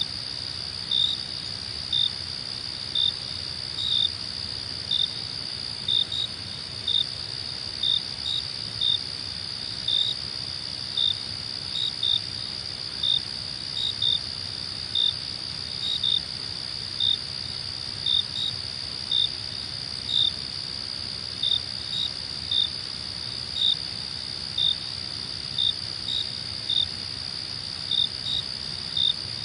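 Night insects: a steady high trill with short, louder chirps repeating about once a second, sometimes in pairs.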